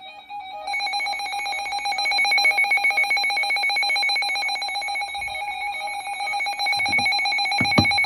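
Electronic alert tone trilling: a rapid ringing warble on several steady pitches that starts about a second in, with a few short thumps near the end.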